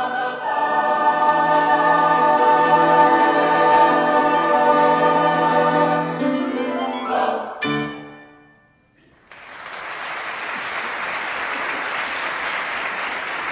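High school concert choir singing a long held final chord, moving through a few closing notes and cutting off about eight seconds in, the sound ringing away in the hall. After a brief hush the audience breaks into applause.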